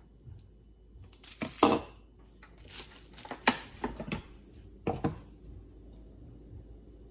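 Clatter and sharp metal knocks of a stainless-steel mixie (mixer-grinder) jar being handled after grinding: lifted off its base, opened and emptied into a steel bowl. The loudest knock comes about a second and a half in, with more near three and a half and five seconds.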